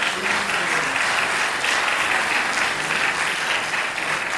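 Theatre audience applauding at the end of a scene: many hands clapping together, steady, easing off slightly near the end.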